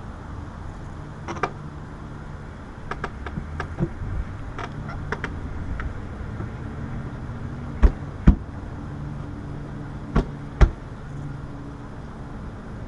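Steady low mechanical hum of running rooftop air conditioning equipment, with scattered light clicks of handling, and two pairs of sharp knocks, each pair about half a second apart, the loudest sounds, near the middle and later on.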